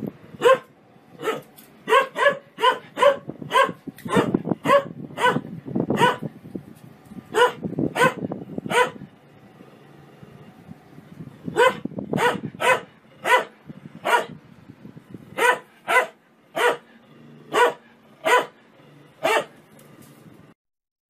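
A dog barking repeatedly, short sharp barks one or two a second with a brief pause midway, over a low rumble; the barking stops shortly before the end.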